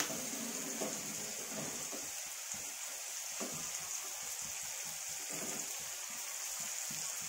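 Steady sizzling hiss of onions frying in oil in a kadai, with faint soft scrapes and sloshes of a ladle stirring thick cooked dal in an aluminium pressure cooker.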